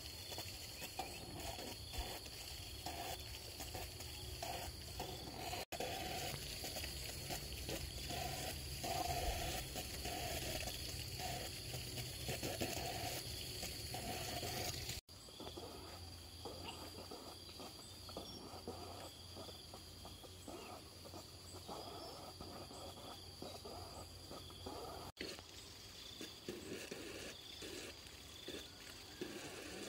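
Outdoor ambience: insects buzzing steadily at a high pitch, with short animal calls repeating about once a second over a low rumble. The sound breaks off abruptly three times.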